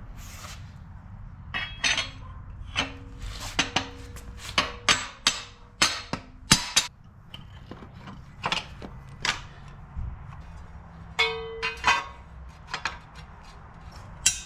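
Metal tools and car parts clanking and knocking: about twenty irregular sharp strikes, some ringing briefly, with a cluster of strikes around six seconds in and another around eleven to twelve seconds.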